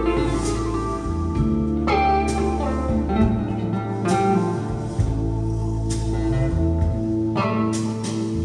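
Recorded music played through Polk Audio Reserve R200 bookshelf speakers: an instrumental passage of electric guitar over steady bass notes, with no vocals.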